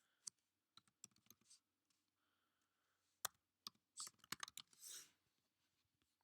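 Faint, scattered clicks of someone working a computer, with a quick run of them about four seconds in, against near silence.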